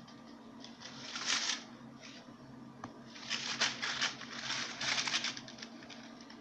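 Rustling and crinkling handling noises in short irregular bursts: one about a second in, then a longer run in the middle. A steady low hum runs underneath.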